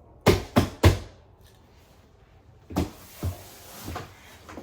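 Three quick, sharp knocks, then a short rustle and a couple of softer thumps, like a package or door being handled.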